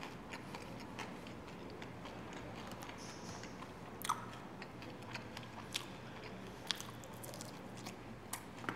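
A person chewing and biting fried chicken with a full mouth, with occasional sharp clicks and crunches every second or two.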